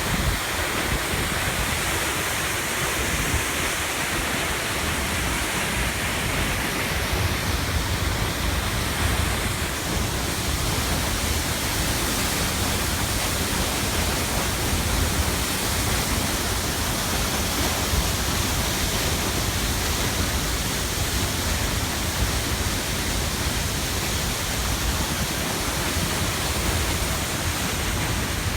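Waterfall: falling water rushing steadily, a loud, even noise with no let-up.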